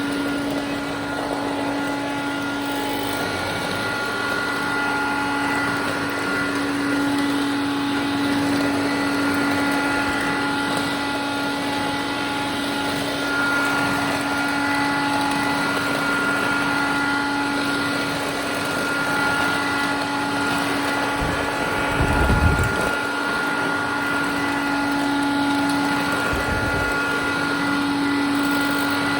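Hoover Dial-A-Matic Model 1136 clean-air upright vacuum running steadily on high suction: a constant motor and fan whine with a rushing of air. The owner thinks the motor needs re-greasing. A couple of low thumps come in the last third.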